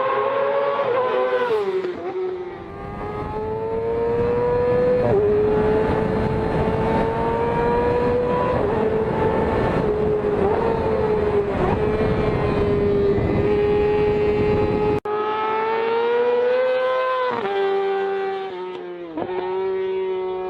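Yamaha motorcycle engine held at high revs, its pitch rising and falling. There is an abrupt cut about two-thirds of the way in to another stretch of high revving, where the revs drop sharply and climb back twice near the end.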